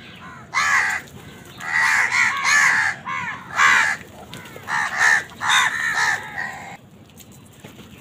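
A flock of house crows cawing, harsh calls in quick clusters, several birds at once, dying away about a second before the end.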